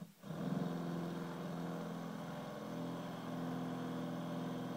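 Cordless drill running steadily while boring a hole through a plywood board. Its motor hum starts a moment in and holds a steady pitch, shifting slightly a little past halfway.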